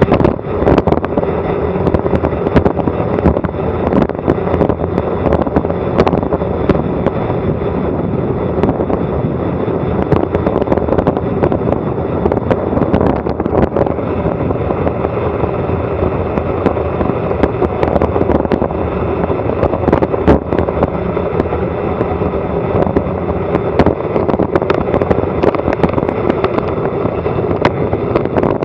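Loud wind and road noise on an action camera's microphone during a fast bicycle descent, with constant crackling and frequent sharp knocks.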